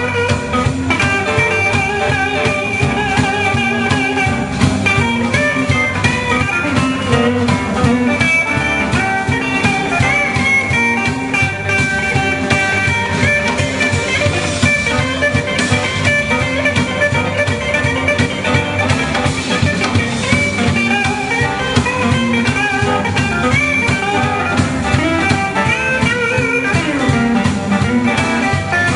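Live blues band playing with electric guitars, bass guitar and drum kit, in an instrumental stretch where a guitar line of bending notes runs over a steady beat.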